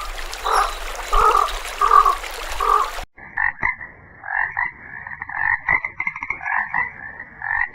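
Frogs croaking: evenly spaced croaks about every two-thirds of a second, then, after an abrupt change about three seconds in, a denser, faster chorus of higher-pitched calls.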